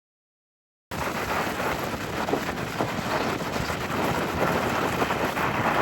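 Heavy rain pouring down, a dense steady hiss that starts abruptly about a second in and cuts off suddenly at the end.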